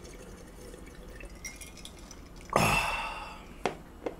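A man drinking from a glass mug: quiet swallowing, then a loud breathy exhale after the drink about two and a half seconds in, and a sharp knock about a second later as the glass is set down on the table.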